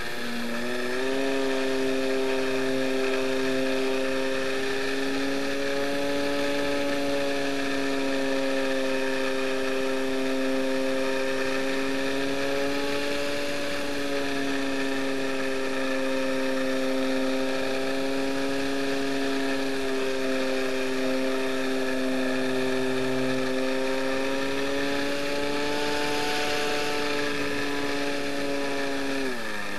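RC model airplane's motor and propeller in flight, a steady droning hum. The pitch rises a little about a second in and drops sharply near the end as the throttle comes back.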